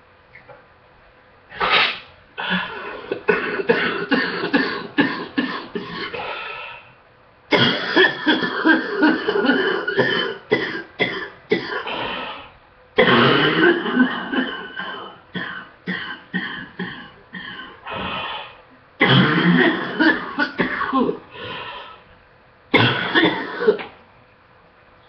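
A person with a cold or illness coughing in fits: about five bouts of rapid, repeated coughs with short pauses between them. This is the morning cough of someone who is sick.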